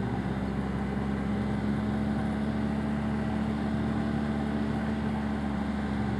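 Arctic Cat Wildcat Trail UTV running at a steady cruise, its engine holding one even pitch under a steady rush of tyre and wind noise.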